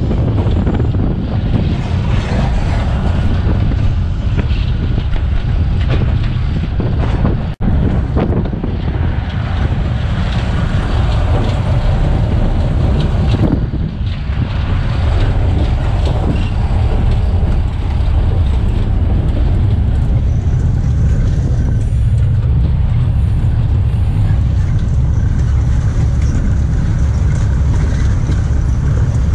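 1943 GE 80-ton diesel-electric switcher running under way, heard from its cab: a steady, loud engine and running rumble with wind buffeting the microphone. The sound drops out sharply for an instant about seven and a half seconds in.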